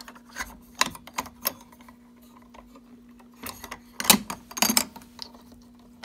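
Metal clicks and clacks from an FCI MS-2 fire alarm pull station being reset by hand: its pulled handle is pushed back into place, then keys on a keyring jangle as the reset key goes to the lock. There are a few sharp clicks in the first second or so, then a pause, then a denser clatter past the middle.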